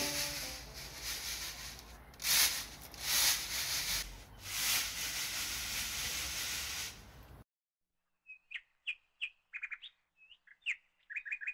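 A noisy rustling hiss that swells several times and breaks off abruptly about seven seconds in. After a moment of silence, small birds chirp in short, high, repeated chirps.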